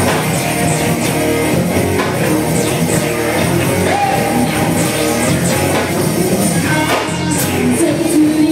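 Live band playing loud amplified rock music on electric guitars, keyboards and drums.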